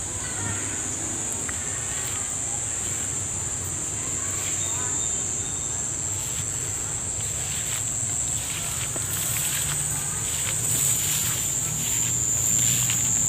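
A steady, high-pitched drone of insects in the rice fields. From about eight seconds in, rice plants rustle as they brush past while someone walks through them, growing louder near the end.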